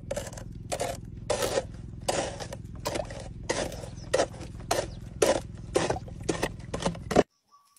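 Edge of a clear plastic cup scraping and crushing a pink apple snail egg clutch against a rough surface, in repeated short strokes about twice a second. It cuts off suddenly near the end.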